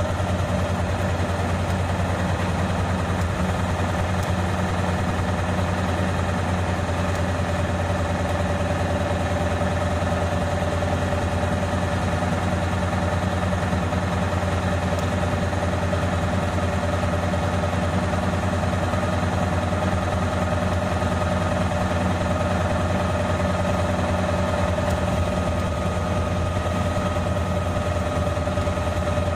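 Isuzu Erga city bus engine running steadily, heard from on board, with a steady higher whine over a low, even engine note that neither rises nor falls.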